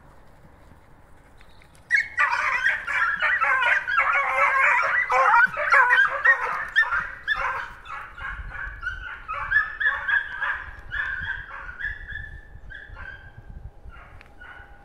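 A young beagle pack giving tongue: about two seconds in, the hounds burst together into high, overlapping baying and yelping as they take up the line of a flushed hare. The cry is densest for the next few seconds, then thins to scattered yelps and fades as the pack runs off.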